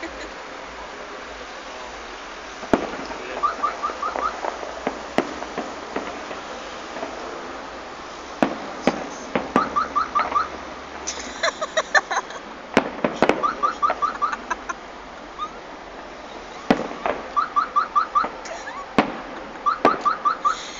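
Fireworks salute: sharp bangs of shells bursting every few seconds. Between the bangs come quick runs of repeated high chirps.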